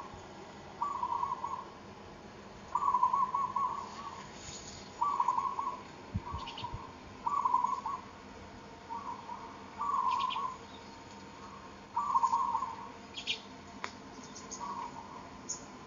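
A bird calling over and over: short trilled calls, each about half a second, repeating every one to two seconds. A few brief high chirps from another bird come in between.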